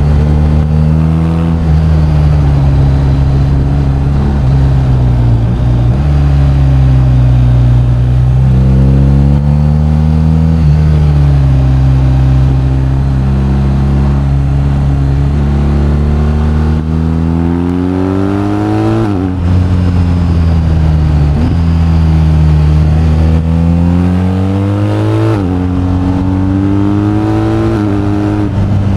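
BMW R1250GS boxer-twin engine under way: the engine note wavers gently as the rider rolls on and off the throttle, then climbs hard twice in the second half, each climb ending in a sudden drop in pitch as the rider shifts up.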